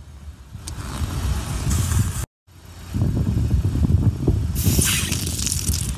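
Car rolling slowly over asphalt with a low engine and tyre rumble, broken by an abrupt cut about two seconds in. Near the end a harsh hissing crackle rises as the tyre crushes a rubber pig toy filled with water beads.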